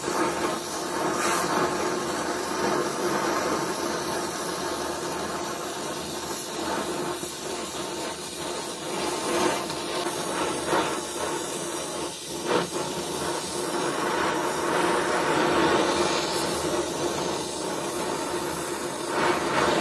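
Gas welding torch (Donmet 132A micro) flame hissing steadily while welding a steel pipe joint.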